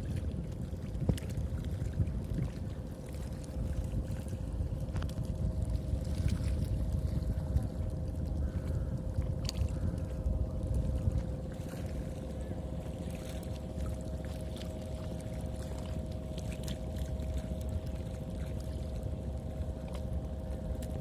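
River water flowing, with a strong low rumble, a few scattered clicks and a faint steady two-note hum underneath.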